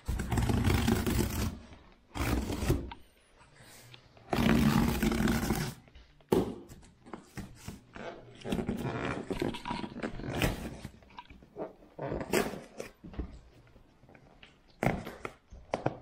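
Clear plastic stretch wrap being cut and torn off a cardboard box by hand, in loud crinkling rustles. The rustles come in bursts of one to two seconds, several times over, with quieter stretches between.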